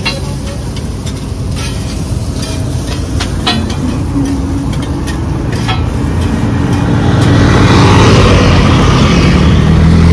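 Road traffic rumbling, with a motorcycle engine growing louder as it passes close by in the second half. Earlier, a few sharp clicks of a metal spatula on a street-food griddle.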